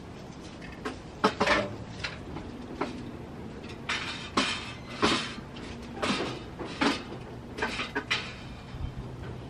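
Rummaging through boxes and stored belongings: irregular knocks, clatters and rustles as objects are shifted and set down, the loudest about a second and a half in.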